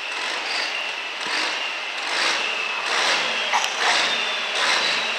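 Diesel engine of a farm-stock pulling tractor running while hooked to the pulling sled, getting louder about three seconds in as it is throttled up.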